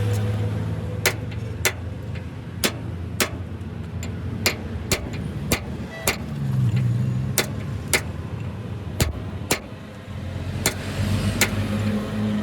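Repeated sharp knocks, one or two a second at an irregular pace, over a steady low engine-like hum that briefly drops near the end.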